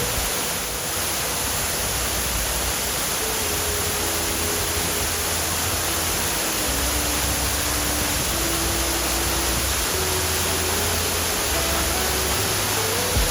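Steady rush of a 90-foot waterfall's falling water, with soft background music of slow held notes over a bass line.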